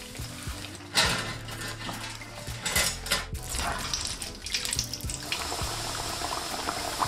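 Metal sieve clinking and scraping against a wok of hot frying oil as the oil is skimmed. About five seconds in, battered chicken pieces go into the oil and a steady frying sizzle starts.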